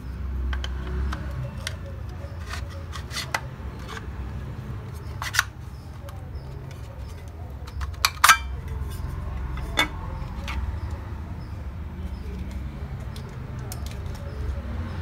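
Plastic enclosure of an external hard drive being pried apart with a small screwdriver: scattered sharp clicks and snaps of the case clips and tool, the loudest about 5 and 8 seconds in. A steady low hum runs underneath.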